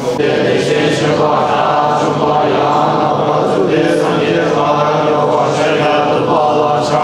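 Tibetan Buddhist monks chanting prayers together in low voices, the recitation running on without a break.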